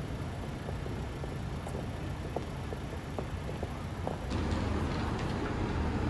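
Steady low rumble of vehicle noise with scattered light clicks, growing louder about four seconds in.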